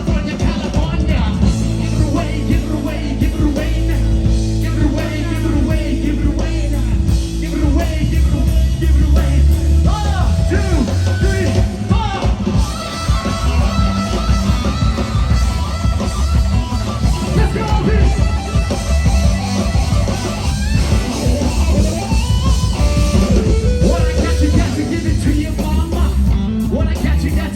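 Rock band playing live: electric guitar, bass guitar and drums, loud and continuous.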